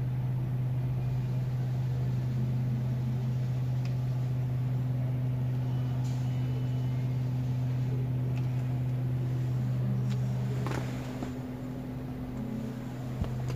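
Toyota Rush four-cylinder engine idling with the car stopped, heard inside the cabin as a steady low drone (dengung). This is the cabin hum at idle that the owner complains of. The drone eases slightly near the end.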